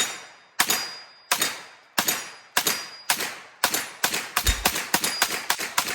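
A string of rifle or pistol shots fired in steady succession, roughly one every 0.6 seconds, each ringing out briefly. About four seconds in the shots come much faster, several a second, and a low rumble joins them.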